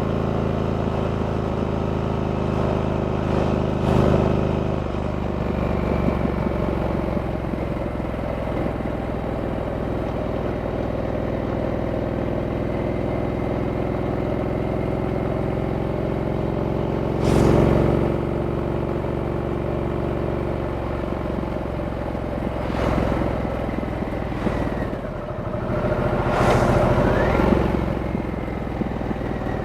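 Stock Harley-Davidson Sportster S's 1250 cc V-twin engine running under way, heard from the rider's position. Its note holds steady at first, then rises and falls with the throttle in the second half. Brief loud rushing noises come through it, the loudest about 17 seconds in.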